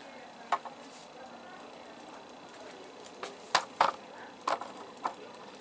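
Kitchen knife knocking on a cutting board while trimming the stems off peppers: about six sharp, scattered taps, the loudest two close together about three and a half seconds in.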